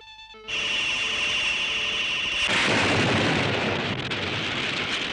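Sci-fi sound effects: a steady, high electronic beam-firing tone starts about half a second in. About two and a half seconds in, a large explosion blast takes over and slowly fades.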